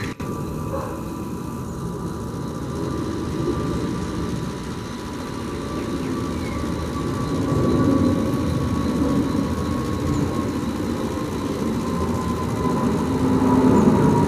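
Boeing 747-8 freighter's four GEnx jet engines at takeoff-climb power as it passes overhead: a steady, deep jet noise that grows louder about halfway through. A faint whine in it slides slightly down in pitch near the end as the aircraft goes over.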